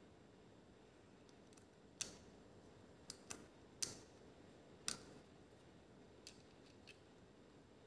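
Sharp clicks and taps of small hard parts being handled, five distinct ones between about two and five seconds in and two faint ones after, over quiet room tone.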